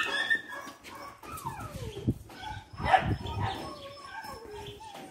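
Two young dogs play-fighting and calling: several high whines that slide down in pitch, with sharp louder yelps near the start and about two and three seconds in.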